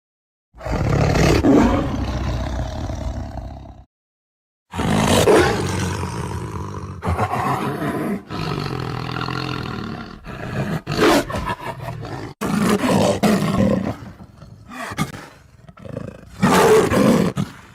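Tiger roaring. A roar of about three seconds comes first, then after a short pause a longer roar. A string of shorter roars, separated by brief gaps, follows through the rest.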